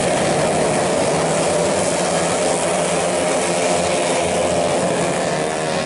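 Engines of 131cc tuned automatic racing scooters buzzing at high revs on the circuit, a steady, dense engine note over a wash of hiss.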